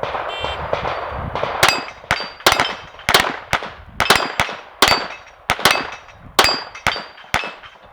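Glock pistol firing a rapid string of shots at steel plates, starting about a second and a half in, with each hit ringing the steel plate with a metallic clang.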